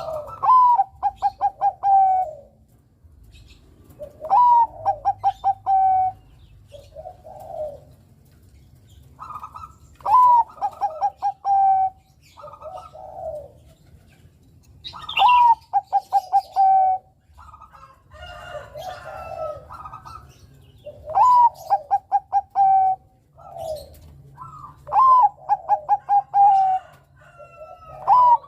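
Bangkok-type perkutut (zebra dove) singing its cooing song: about seven phrases, one every four to six seconds, each a rising opening note, a quick run of short staccato notes and a long final coo. Softer coos come between the phrases, with faint high chirps from small birds.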